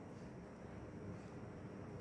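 Faint scratching of a pencil writing on paper over a low, steady hiss of room noise.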